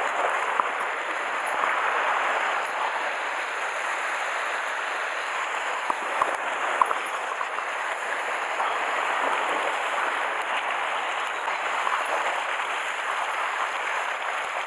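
Sea water washing and fizzing over shore rocks: a steady surf hiss, with a few small clicks.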